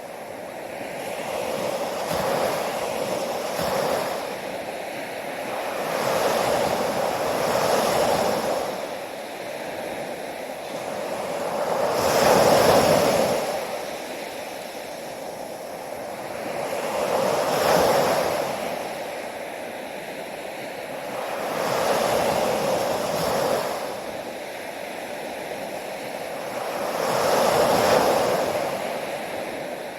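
Ocean waves breaking on a shore, swelling and washing back in a slow rhythm, about one wave every four to six seconds, the loudest about a third and two thirds of the way in.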